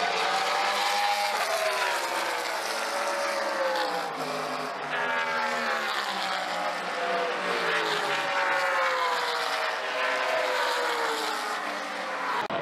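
Race car engines on the circuit at high revs, their pitch sliding down and rising again several times as the cars shift gears and pass.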